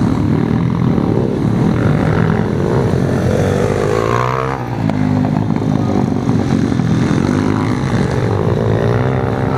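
Several pit bikes' small single-cylinder four-stroke engines revving and shifting as they race, their overlapping engine notes rising and falling. About four seconds in, one engine's pitch rises sharply as a bike passes close.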